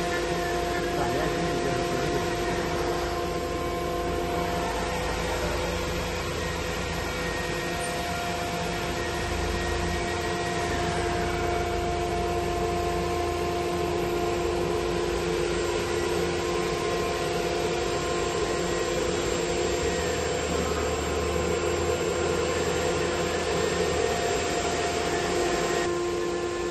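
Industrial 4-axis CNC wood router running: its spindle gives a steady whine of several held tones over a low rumble. A few short gliding whines come and go as the axis drives swing and reposition the head.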